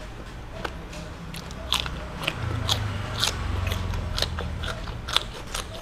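Raw cucumber being bitten and chewed: a string of crisp crunches and crackles, about a dozen, with a low rumble of chewing underneath.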